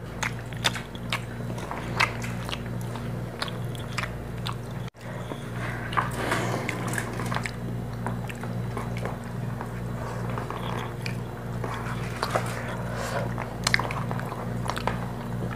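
Close-up mukbang eating sounds: chewing and biting, with many small clicks and crackles as hands pick through rice and grilled meat on a foil platter, over a steady low hum. The sound briefly drops out about five seconds in.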